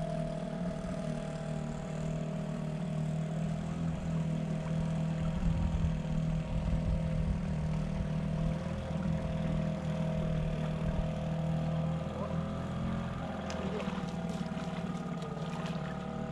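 Motorboat's outboard engine running steadily with a droning hum, its pitch shifting slightly in the last few seconds.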